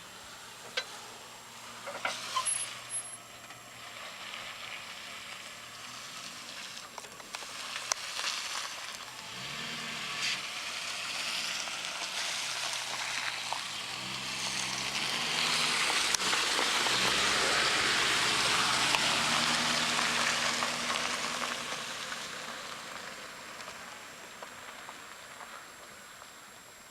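A vehicle's engine and tyre noise slowly builds to a peak and then fades away, as a car drives off.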